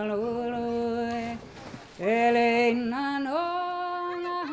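A solo voice singing long, held notes that slide up and down between pitches, with a short pause for breath about a second and a half in before it comes back louder.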